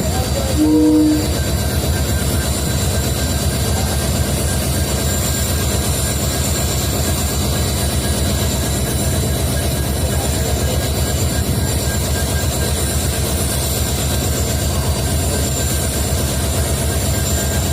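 Twin EMD WDG4 (GT46MAC) diesel-electric locomotives running at idle with a steady hum: their 16-cylinder two-stroke EMD 710 engines give a fast, even beat with a steady high whine above. A brief, louder tone sounds about a second in.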